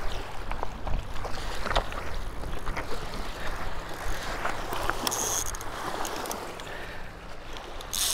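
Footsteps crunching and clicking on loose shoreline rocks as an angler hurries to a rod with a bite, over lapping waves and a low steady hum. A high buzz comes briefly about five seconds in and again near the end as line is pulled from the reel against its drag.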